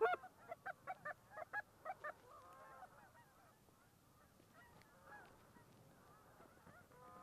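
Geese honking: one loud honk right at the start, a run of quicker, quieter honks over the next two seconds, then the fainter, overlapping calling of a flock.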